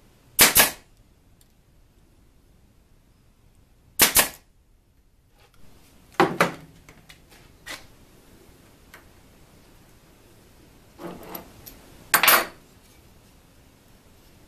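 Pneumatic brad nailer firing twice, about three and a half seconds apart, each shot a sharp double crack. Several more loud knocks and clatters follow as the tools are handled and the C-clamp is taken off the work.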